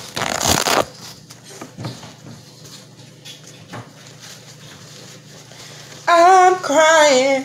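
A short burst of rustling in the first second and soft handling noises of a paper towel. About six seconds in, a woman starts singing in long, wavering notes.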